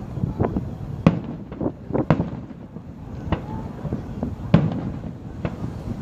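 Fireworks going off: an irregular string of sharp bangs and cracks over a steady low rumble, about two a second, with the loudest bang a little past the middle.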